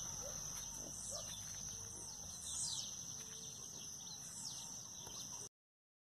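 Several wild birds singing in a dawn chorus: scattered chirps and short falling whistles over a steady high insect trill. The sound cuts off sharply about five and a half seconds in.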